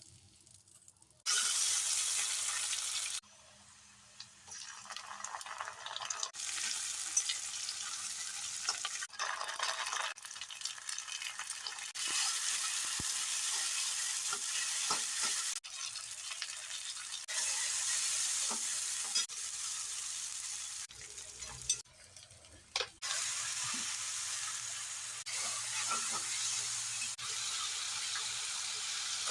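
Food frying and sizzling in hot oil in a pan, with stirring and an occasional scrape or clack of the utensil. The sizzle starts and stops abruptly every few seconds, as in a string of short cut-together clips.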